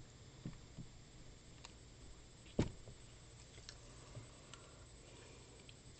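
Faint scattered clicks of a computer mouse as letters are drawn stroke by stroke, with one louder click-knock about two and a half seconds in.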